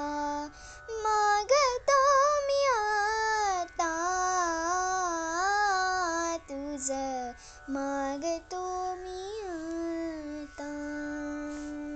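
A young girl singing the closing phrases of a Marathi devotional song in long, ornamented runs over a steady drone-like accompaniment, ending on one long held note near the end.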